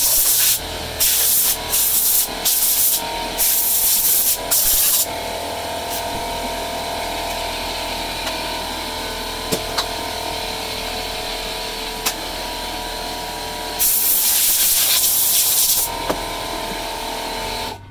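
Shop vac running through a DusTopper cyclone separator on a bucket: a steady motor whine, with loud rushing bursts as sawdust is sucked up the hose. There are several short bursts in the first five seconds and a longer one near the end. The sound cuts off suddenly at the very end.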